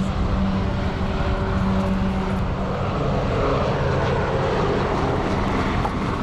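BETA Technologies ALIA all-electric aircraft's electrically driven propeller humming steadily as the plane takes off and climbs, with a broader rushing drone swelling about halfway through.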